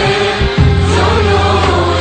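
Background music with singing voices over sustained notes; a low bass comes in about half a second in.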